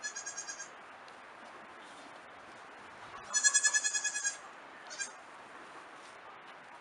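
Nigerian Dwarf goat kids bleating. There is a short, high, wavering call at the start, a longer, louder one about three seconds in, and a brief one about a second after that.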